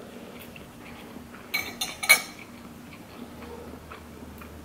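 A metal spoon clinking against a ceramic plate: a quick cluster of clinks about a second and a half in, the last one the loudest.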